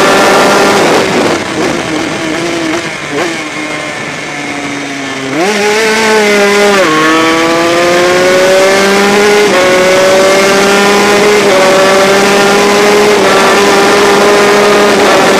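Honda RS125 racing motorcycle's 125cc two-stroke single-cylinder engine, heard from on board. It comes off the throttle and shifts down through the gears for a few seconds, then opens up about five seconds in and accelerates hard, the pitch climbing and dropping at each of four upshifts. Wind rushes over the microphone at speed.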